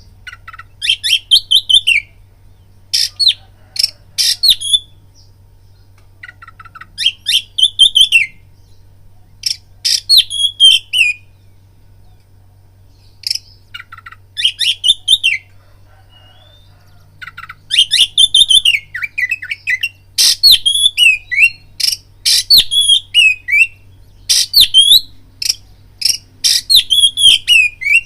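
Oriental magpie-robin (kacer) singing: repeated short phrases of rapid high chirps and whistled notes that slide downward, separated by pauses of a second or two.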